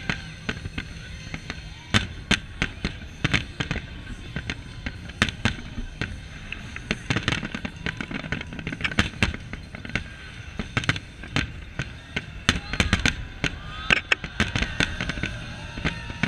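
Aerial firework shells bursting in quick, irregular succession, several sharp bangs a second.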